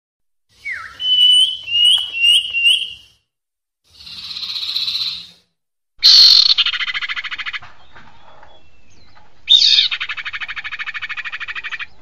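Recorded calls of a female sirpu (common iora), played as a bird-trapping lure. First a falling whistle and four short clear notes, then a harsh hiss, then two long, loud buzzy rattling trills.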